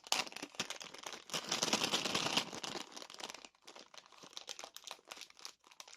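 Crinkly plastic packaging being handled and unwrapped by hand, a dense crackling for the first three and a half seconds that thins to a few faint rustles.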